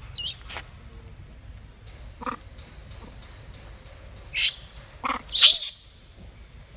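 Young long-tailed macaques give a string of short squeals and screams during rough play-wrestling. The loudest scream comes a little after five seconds in.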